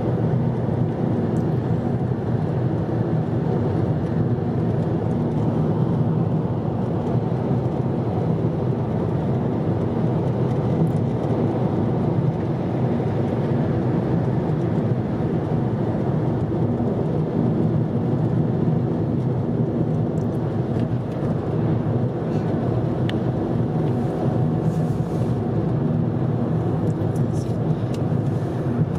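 Steady road and engine noise of a car travelling at highway speed, heard from inside the cabin.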